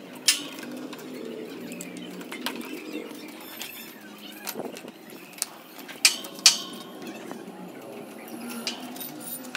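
Sharp metal clinks and knocks of hand tools and a scooter's front suspension fork parts being handled on a concrete floor. The loudest clink comes about a quarter second in, with two more close together around six seconds in.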